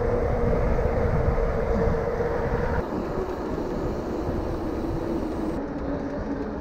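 Steady rushing and rumbling ride noise from a mountain bike in motion, wind and tyres on the trail, with a hum that slowly falls in pitch and gives way to a lower hum after a few seconds.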